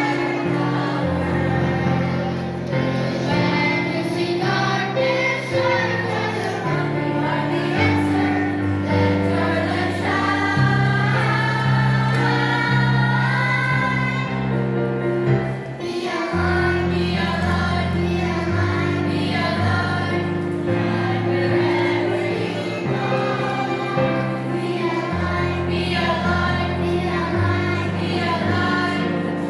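Children's choir singing a song with instrumental accompaniment, held bass notes changing every few seconds beneath the voices.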